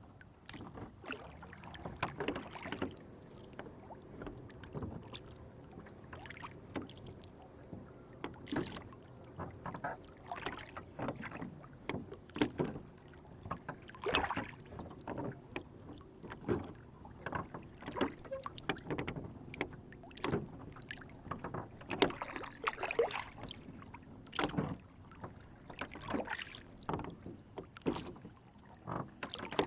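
Small rowboat on a lake: water splashing and knocking against the hull in many short, irregular slaps over a low steady wash.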